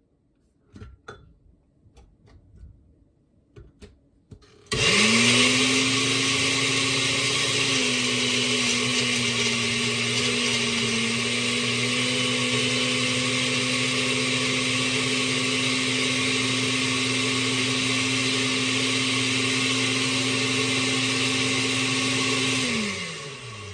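Countertop blender starting about five seconds in and running steadily, blending banana and mixed fruit, its motor note dropping a little a few seconds after it starts. Near the end it is switched off and the motor winds down with a falling pitch. A few light clicks and knocks come before it starts.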